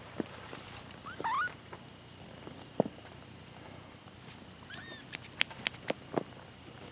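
Young kittens mewing: one short rising mew about a second in and a smaller high chirp near five seconds, among sharp little clicks and rustles of them being handled.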